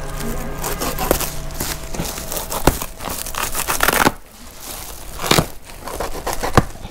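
White woven plastic sack around a large bale rustling, crinkling and tearing as it is slit open with a cutter, with a few sharp clicks among the rustling.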